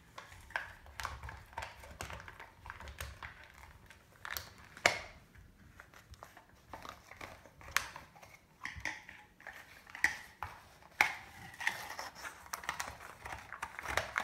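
Beagle nosing, pawing and chewing a hard red plastic toy on a hardwood floor: irregular clacks and knocks of plastic against wood and teeth, with several sharper knocks scattered through.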